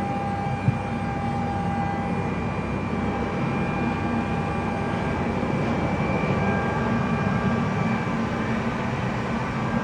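Steady cabin drone inside a Boeing 717 airliner: a low rumble with a few faint steady whining tones over it. There is a single short click just under a second in.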